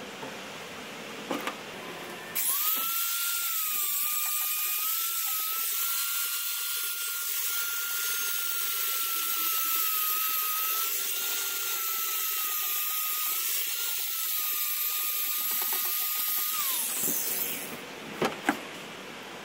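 Corded angle grinder switched on about two seconds in, running with a steady high whine while grinding the plywood transom, then switched off and winding down near the end. A few light clicks follow.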